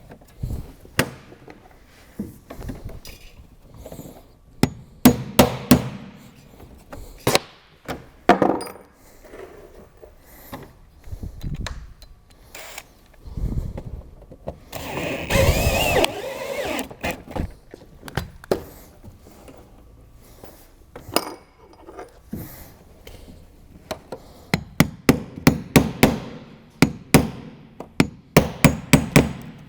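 Hammer blows and knocks on sheet-metal flashing being fitted, scattered at first, with a second-long noisy rattle of the metal about halfway, then a quick steady run of blows, about two a second, near the end.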